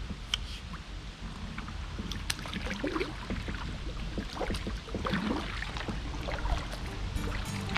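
Kayak paddle dipping into calm lake water, with small splashes and drips at irregular moments over a steady low rumble.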